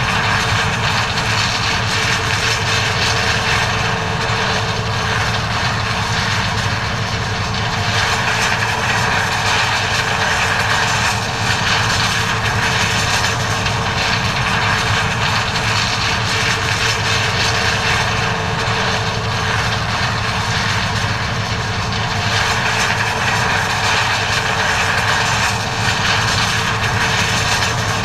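John Deere 9400 combine running steadily while harvesting corn, a constant loud machinery drone with a steady hum.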